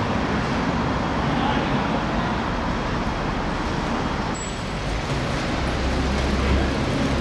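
Steady city traffic hum around an outdoor football court, with voices calling now and then.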